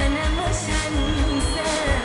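Live Arabic pop song: a woman singing a wavering melody over a band with a steady bass beat.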